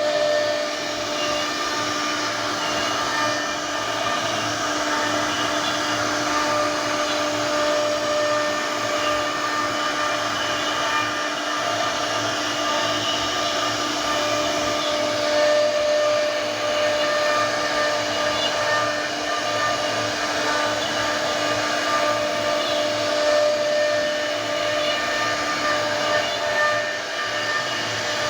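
CNC router carving wood: the spindle's steady whine over a continuous cutting hiss.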